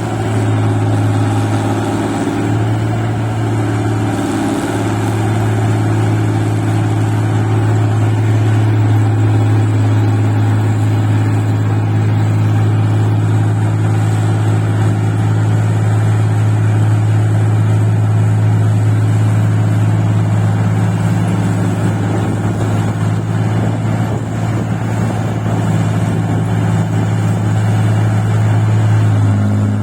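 Engine of a paddy-field rice machine running steadily under load while it works through deep, muddy soil, with a strong low hum.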